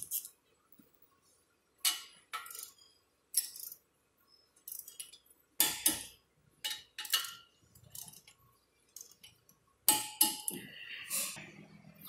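A dozen or so short metallic clinks and clicks, spread irregularly with quiet gaps between them: a wrench and socket being fitted to and worked on the front brake caliper bracket bolts.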